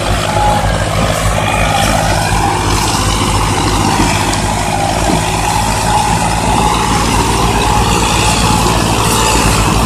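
Two three-cylinder diesel tractor engines, a Ford 3610 and a Massey Ferguson 240, running hard under heavy load as they pull against each other on a chain, a steady low throb with no let-up.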